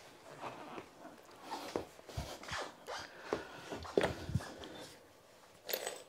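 Parts of a bicycle repair stand being handled and fitted together by hand: irregular light clicks and knocks, the loudest about four seconds in, with a short rustle near the end.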